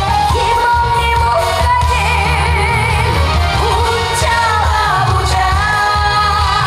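Korean trot song performed live: a woman singing a wavering, vibrato-laden melody over band backing with a steady bass beat.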